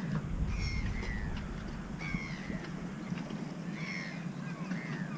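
Birds calling: about five short, harsh calls, each dropping slightly in pitch, over a steady low rumble of wind on the microphone.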